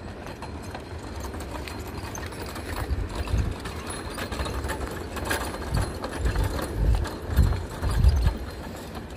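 Footsteps on a gravel path at walking pace, with low thumps about every half second that grow louder from about a third of the way in.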